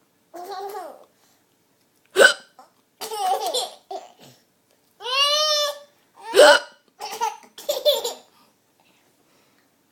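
Hiccup sounds acted out for a sock puppet's hiccups: two sharp, short hics, about two seconds in and again past the middle. Laughter comes in between them.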